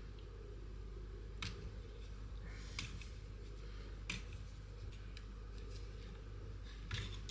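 A few sharp clicks and light taps of small metal gearbox parts being handled while the hedge trimmer's crank assembly is taken apart, over a steady low hum.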